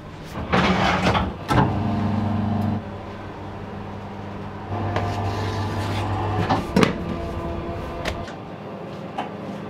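Commercial kitchen work on udon dough: several sharp knocks and clunks on stainless steel, with a low machine hum that comes on twice, each time for one to two seconds.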